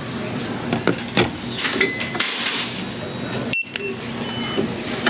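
Short electronic beeps at a store checkout, one sharper and higher about two thirds of the way in, over a steady hum of store noise with light clinks.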